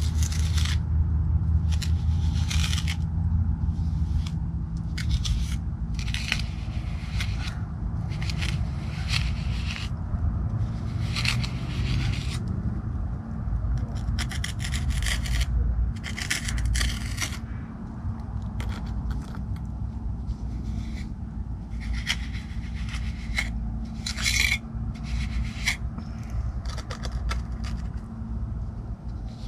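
A tool scraping and rubbing through wet polymer-modified cement patch mix in repeated, irregular strokes, about one or two a second, over a low rumble.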